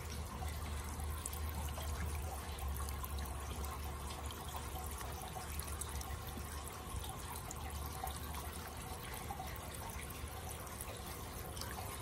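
Small floating solar fountain pumps spraying water into a shallow plastic bird-bath tray: steady splashing and trickling, over a low steady rumble.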